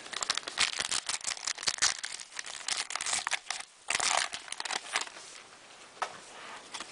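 Basketball card pack wrapper crinkling and cards rustling as a pack is handled, in a rapid run of small crackles. A short louder burst comes about four seconds in, and the handling turns quieter after that.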